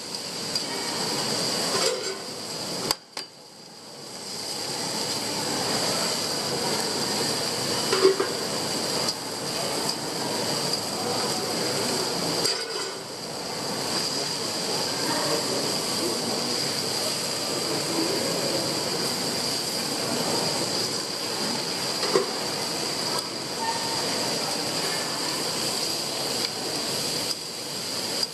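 Meat and vegetables sizzling on a steel flat-top griddle with a steady hiss, and metal spatulas clinking against the griddle plate and a steel dome cover now and then. The sound drops out briefly about three seconds in.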